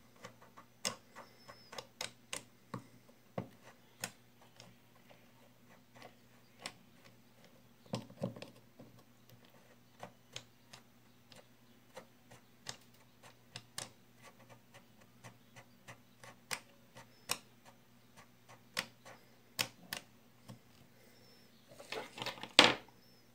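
Irregular small clicks and ticks, about one or two a second, from an Abu Garcia baitcasting reel being handled and screwed back together on its star-drag side. A quick run of louder clicks and a clatter comes near the end.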